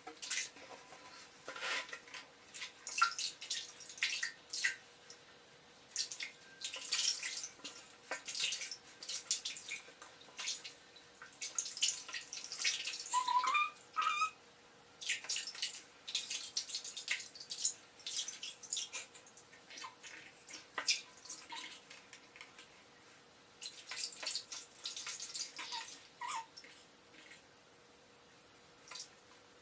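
Bath water splashing and dripping in irregular bursts as a Norwegian Forest cat kitten is washed, with a short rising meow about halfway through and a couple of fainter cries later.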